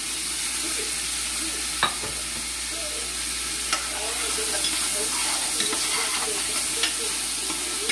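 Freshly added carrots cooking in a hot pot with a steady sizzle, stirred with a utensil that clicks sharply against the pot three times.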